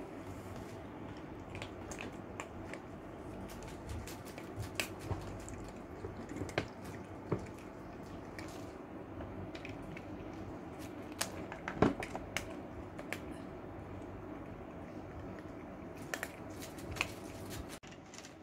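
Cats crunching dry kibble: irregular crisp crunches and clicks, several at a time, with one louder crunch about two thirds of the way through, over a low steady hum.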